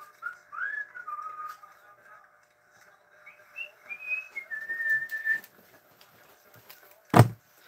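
A person whistling a short tune in single sliding and held notes, in two phrases with a pause between them. A single thump near the end.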